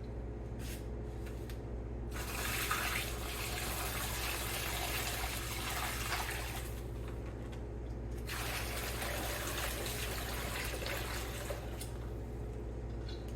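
Warm brine poured from a pot into a brining bag over three ducks, in two pours of about five seconds each with a short break between.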